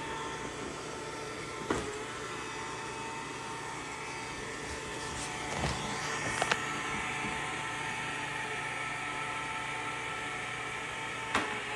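Robot vacuum cleaner running across a hardwood floor: a steady motor whir, with a few light knocks along the way.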